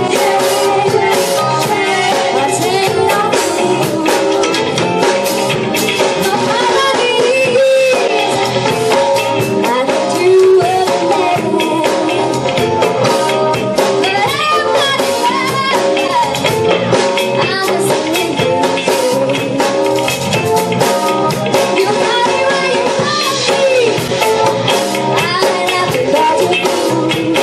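A live band playing a song, with a woman singing lead into a microphone over a drum kit with a steady beat, congas and guitar. The recording is rough and poor in quality.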